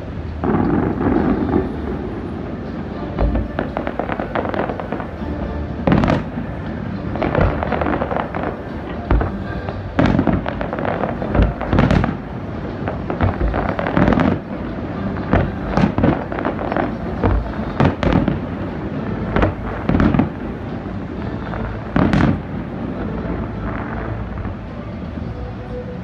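Aerial fireworks shells bursting in an uneven series of sharp bangs, well over a dozen of them, over a dense continuous noise of smaller bursts.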